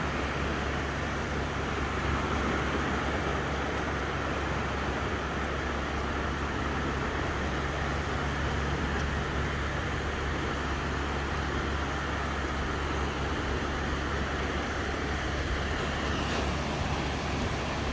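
Calm sea waves washing ashore in the wind: a steady rushing noise with a constant low rumble underneath.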